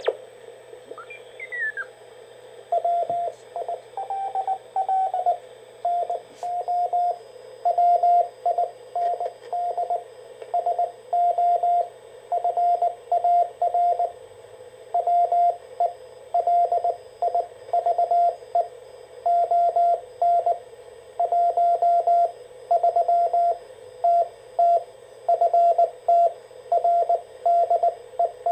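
Morse code (CW) signal received on a Ten-Tec T-Kit 1056 direct-conversion receiver: a single steady beep tone keyed on and off in dots and dashes over faint band hiss. About a second in, a whistle falls in pitch as the receiver is tuned onto the signal.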